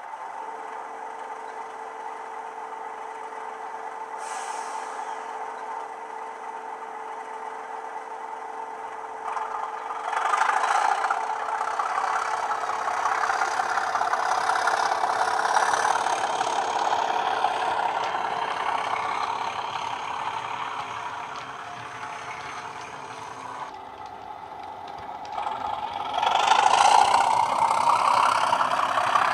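Coastal DCC sound decoder playing a Class 37 diesel engine sound through a 27mm bass speaker in a Bachmann OO-gauge model. The engine runs steadily, then grows louder about ten seconds in as the locomotive pulls away, eases off, and builds up loudly again near the end.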